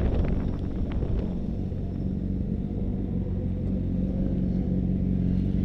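Motorcycle engine idling steadily as the bike rolls slowly, with wind noise on the microphone dying away in the first second.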